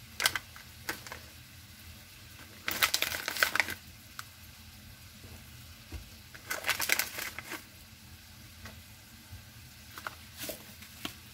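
Plastic spice pouch of dried rosemary crinkling in four bursts as it is handled and shaken, two of them lasting about a second, over a faint steady sizzle of steak frying in a pan.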